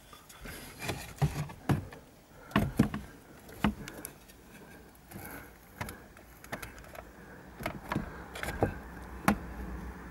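Scattered clicks and knocks from handling a car navigation radio as it is slid out of its dashboard slot: the unit's metal case and the plastic trim knocking and rattling.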